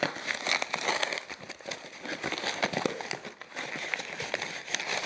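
Patterned gift-wrapping paper being pulled and crinkled off a small cardboard box, with irregular rustling and crackling of paper and cardboard.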